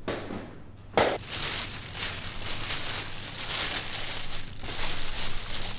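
Thin plastic carrier bag rustling and crinkling as it is pulled open and off a cardboard food box, after a single knock about a second in.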